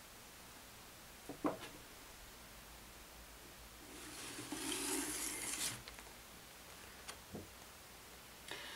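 A kamishibai picture card sliding out of its wooden stage frame: a faint rubbing swish of paper against wood lasting about two seconds, with a light knock before and another after.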